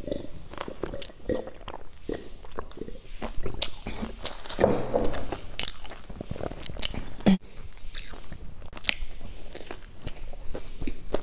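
Close-miked eating: crisp crunching and chewing of deep-fried, crumb-coated balls, with irregular crackles and a few louder crunches as they are bitten.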